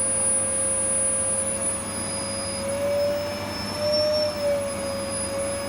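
Vacuum cleaner running steadily with a high motor whine, its pitch rising slightly and settling back about midway.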